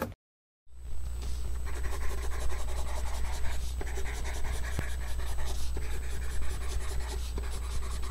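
Pencil sketching on paper: continuous dense scratching of many quick strokes with a steady low hum beneath, starting just under a second in.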